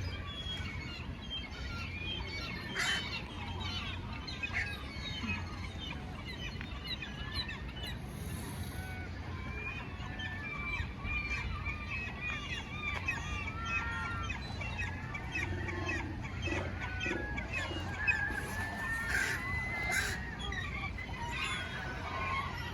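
A large flock of birds calling, with many short cries overlapping continuously over a steady low rumble.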